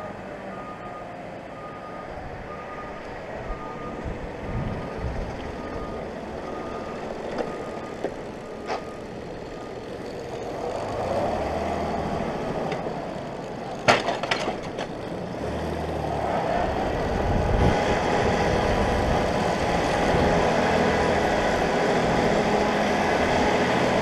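Massey Ferguson 1523 compact tractor's diesel engine running as it scrapes slurry, with a reversing alarm beeping steadily over it for the first several seconds. There is a brief loud clatter a little past halfway, and the engine gets louder near the end.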